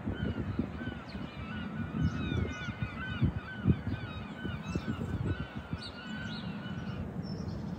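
A flock of birds giving rapid, repeated honking calls that stop about seven seconds in, over a low, gusty rumble.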